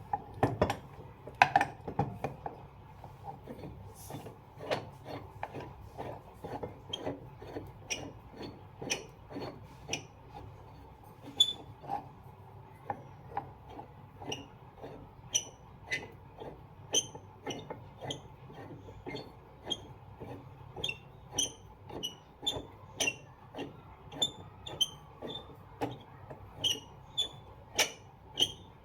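Repeated sharp knocks of work on a ceiling fan with a homemade puller rig, used to free the motor housing from the stator. The knocks come irregularly at first, then settle to about two a second.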